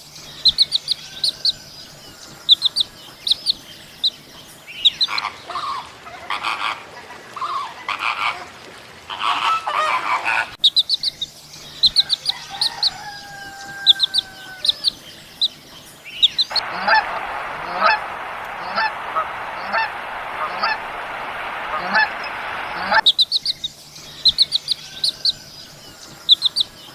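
Birds calling in several edited stretches: rapid, high, short chirps repeating a few times a second, broken by a few seconds of louder, lower calls and later by a stretch of steady hiss with chirps over it.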